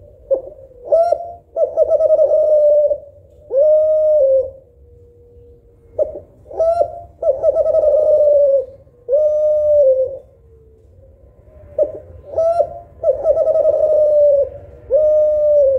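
Spotted dove (derkuku Kelantan) cooing: the same phrase three times, about six seconds apart. Each phrase is a couple of short notes, then a long quavering coo and a final held coo.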